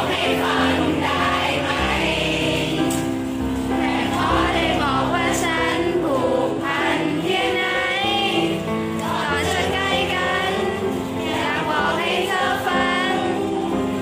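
Thai pop love song playing, with singing over a backing track; many voices sing the melody together.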